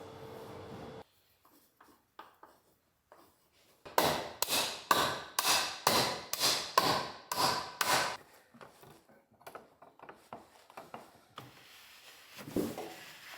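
A power tool's motor runs and cuts off about a second in. A few seconds later comes a quick run of hand-tool strokes on wood, about three a second for some four seconds, followed by a few light knocks.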